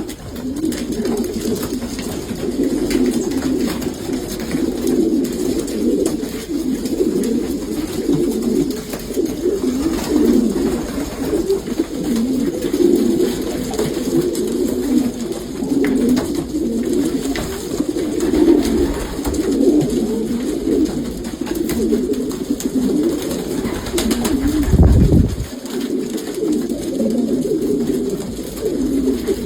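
Many young racing pigeons cooing together in a loft, a dense, continuous overlapping murmur of coos. There is a brief low rumble about twenty-five seconds in.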